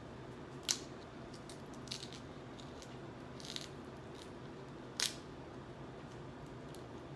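Cooked snow crab leg shells cracking as they are snapped apart by hand: two sharp cracks, one just under a second in and one about five seconds in, with fainter crackles and ticks between.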